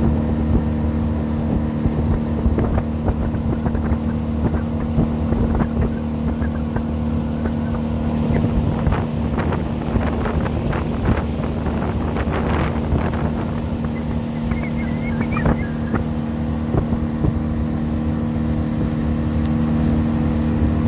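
Boat engine running steadily under way, a constant low drone. Gusts of wind on the microphone come and go through the middle.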